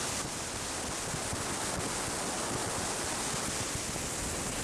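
Steady rushing of water and wind heard from a boat moving on the river.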